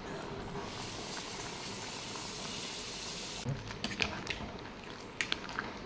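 Food boiling in a cooking pot: a steady hiss that drops away after about three and a half seconds, followed by a few sharp clicks.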